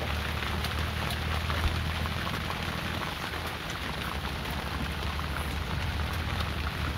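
Steady heavy rain falling on a fishing boat, many drops ticking, over a steady low rumble.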